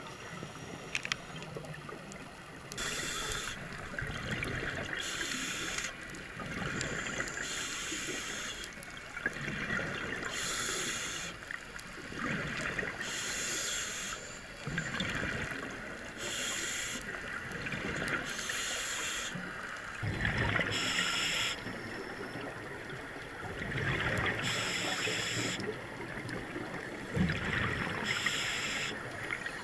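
Underwater scuba breathing through a regulator: a rush of hiss and bubbling every two to three seconds over a steady watery background.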